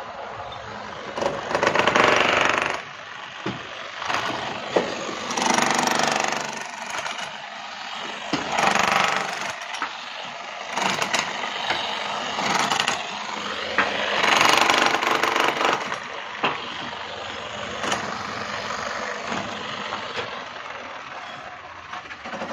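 Electric demolition hammer chiselling concrete in about five bursts of one to two seconds each, with short pauses between.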